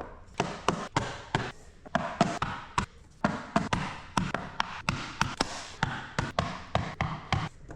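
Vinyl flooring planks being tapped into place: a quick run of sharp knocks, about three a second.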